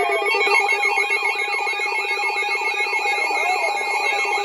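Several weather alert radios sounding their alarms at once: a fast buzzing pulse, steady tones, a warbling high tone and falling chirps about three times a second, all layered together.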